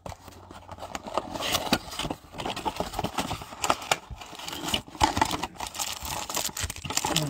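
Plastic shrink-wrap crinkling and cardboard rustling as a football trading-card blaster box is unwrapped and its foil packs are pulled out, with many small irregular clicks and crackles.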